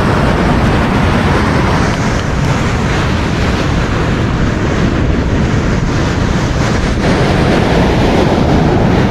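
Surf breaking and washing up the beach in a steady, loud roar of noise, with wind buffeting the microphone.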